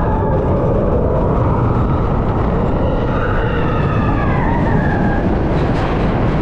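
Expedition Everest roller coaster train running through its rock tunnels: a loud, steady rumble of the train on the track, with a higher wavering sound that falls in pitch near the middle.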